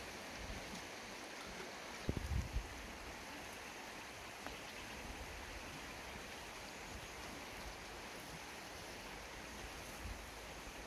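Steady outdoor background hiss, with a short cluster of low thumps about two seconds in.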